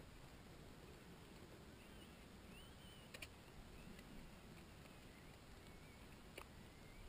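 Near silence, with faint high wavering chirps through the middle and two small clicks, about three seconds in and again about six seconds in.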